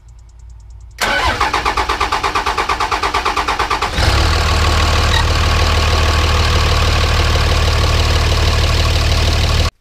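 A 2006 Cummins 5.9-litre inline-six turbodiesel being cranked over by the starter in rapid even pulses for about three seconds, then firing and settling into a steady, loud idle. The sound cuts off abruptly near the end.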